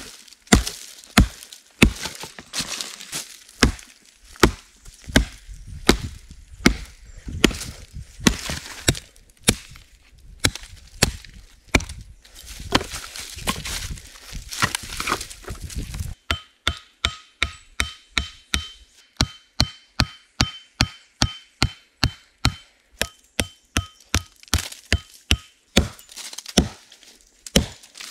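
Wood being chopped with a long series of sharp blows, irregular at first. About halfway through the blows turn fast and evenly spaced, about two a second, each with a faint ring.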